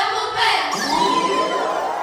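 Pop music with girls singing into microphones, cut off abruptly less than a second in. It gives way to a single high voice holding one long note that slowly rises in pitch, over faint crowd noise.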